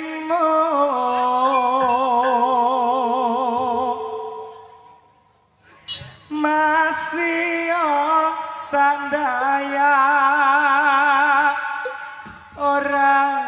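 Jathilan accompaniment music: long sung notes with a strong wavering vibrato. The music fades away about four seconds in and is near silent for about a second. It comes back abruptly around six seconds in, with a few sharp metallic hits.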